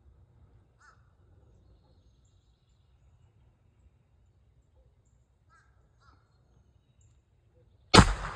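A single gunshot near the end, sharp and loud, with its echo trailing off: the shot that kills the turkey. Before it, a few faint short bird calls.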